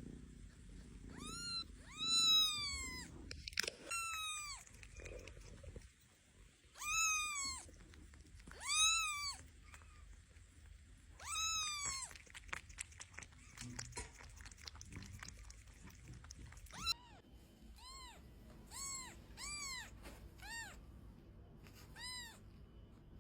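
Domestic cat meowing repeatedly, each meow rising and then falling in pitch. About halfway through comes a run of shorter, quicker meows.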